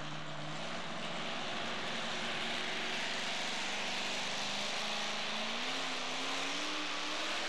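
Two-wheel-drive pulling truck's engine running loud at the start line, hooked to the sled, its pitch climbing over the last couple of seconds as it is revved up.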